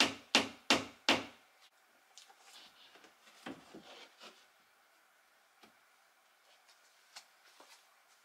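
Hammer driving a nail into a wall: four quick, sharp strikes, about three a second, over the first second or so. Then light knocks and rustling as a framed picture is hung on the nail, and a few faint clicks near the end.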